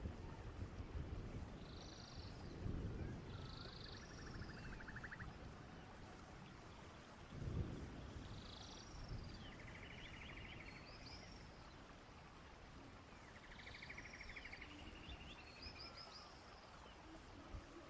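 Repeated small animal calls: short buzzy trills and arching chirps about once a second, over low rumbling background noise with a dull thump near three seconds and another about seven and a half seconds in.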